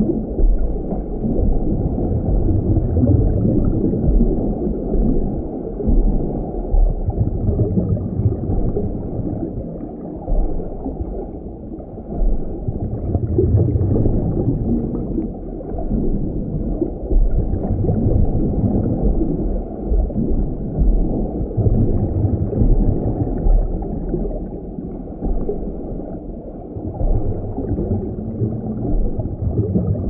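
Underwater ocean ambience: a muffled, low rumbling wash of moving water that swells and ebbs every four to five seconds.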